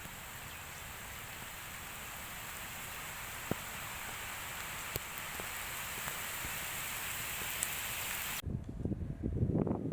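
A steady outdoor hiss with a few faint ticks, then about eight seconds in an abrupt cut to wind buffeting the microphone.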